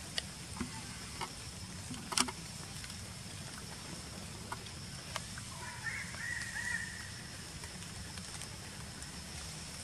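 Forest ambience: a steady high insect drone over a low rumble, with scattered light clicks, one sharper about two seconds in, and a short warbling animal call about six seconds in.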